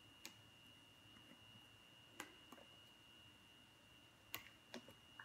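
A few faint, scattered clicks of a plastic lid being worked on a microwavable soup cup, over a faint steady high whine.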